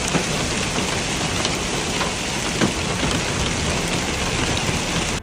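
Heavy rain pouring down, a dense steady hiss that cuts off abruptly at the end.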